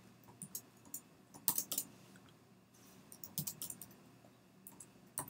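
Faint typing on a computer keyboard: four short groups of keystrokes, a few clicks each.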